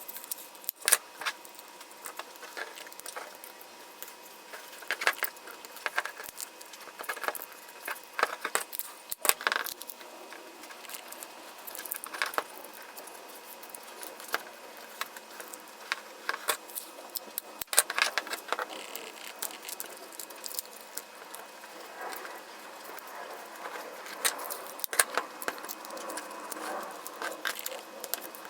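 Small hard metal and plastic parts being handled by hand. There are irregular light clicks, clinks and scrapes, with a few sharper clicks among them.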